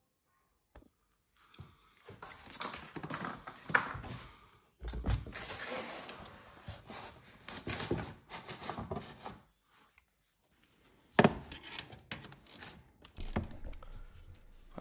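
Handling noises from working under a lawn tractor: irregular scraping, rattling and knocks as a plastic drain tub is pushed into place under the transmission on a tiled floor, with a sharp knock about three quarters of the way through.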